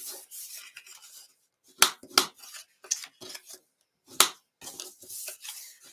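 Cardstock being folded and creased with a bone folder against a wooden desk: soft paper rustling and scraping, with a few sharp taps of the folder and card on the desk.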